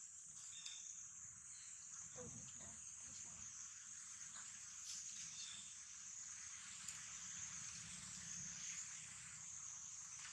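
Steady, high-pitched drone of insects chirring in the forest, faint but continuous.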